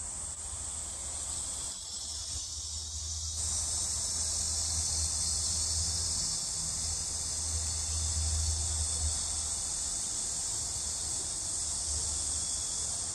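Steady high-pitched buzzing of a summer insect chorus, most likely cicadas in the surrounding trees, holding without a break and growing a little stronger about three seconds in, over a low rumble.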